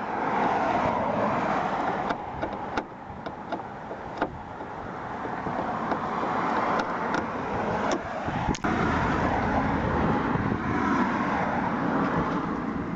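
Steady road-traffic noise, with a few light clicks from a screwdriver working the Phillips screws that hold the tail lamp in.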